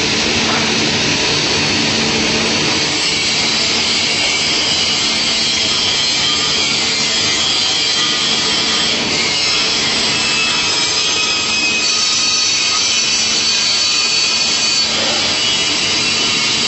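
Panel saw with a scoring blade running and cutting a wood panel: a steady machine sawing sound that holds level throughout.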